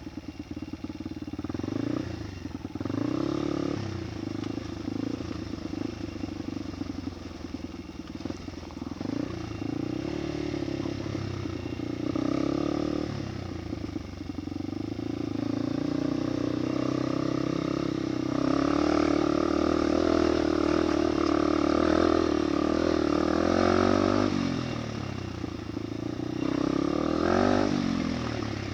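Motorcycle engine running under way, its pitch rising and falling with the throttle, with a louder, higher-revving stretch a little past the middle.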